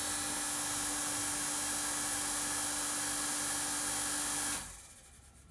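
Handheld electric power tool motor running steadily under power for about four and a half seconds, then switched off and winding down.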